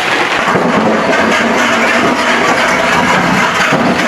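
A single-cylinder diesel engine being hand-cranked and running, a steady low drone that comes in about half a second in, over the hiss of heavy rain.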